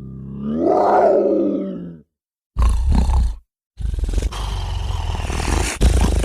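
Warg creature sound effects, several separate cuts with dead silence between them. First a pitched, drawn-out roar swells about a second in and fades. Then comes a short harsh growl, and after another gap a longer, rough, raspy growl of about three seconds.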